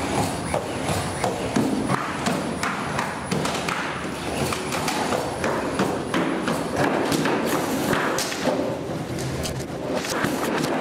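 Irregular thuds and clatter of the ATRIAS bipedal robot stepping across plywood boards and scattered blocks, several knocks a second.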